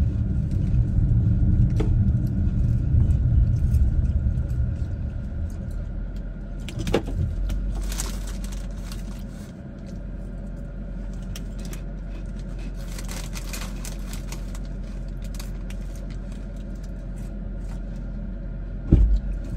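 Car cabin road rumble while driving, easing to a quieter steady low hum about six seconds in as the car slows. Scattered crinkles of a snack bag being handled stand out over it.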